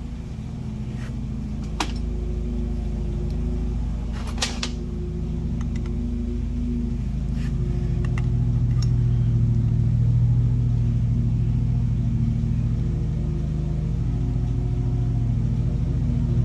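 A steady low mechanical hum of running machinery, with a few light metallic clicks as a dial bore gauge and micrometer are handled, the sharpest about two seconds and four and a half seconds in.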